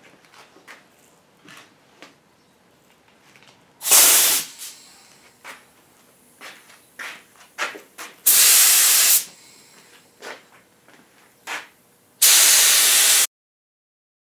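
Aerosol spray paint can fired in three bursts of loud hissing: a short one about four seconds in, then two of about a second each, the last cut off sharply. Small knocks and clicks of handling come between the bursts.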